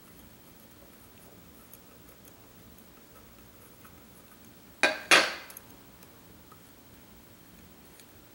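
Two sharp metallic clinks about a quarter of a second apart, a little under five seconds in, the second ringing briefly: a small metal tool or part clattering down. Around them are faint ticks of hands handling the faceplate of a Singer 15-91 sewing machine.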